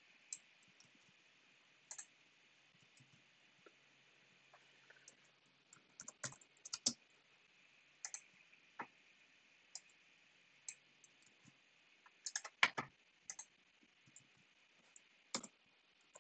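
Faint, sparse computer keyboard keystrokes and mouse clicks: single clicks and short clusters with gaps of a second or more between them.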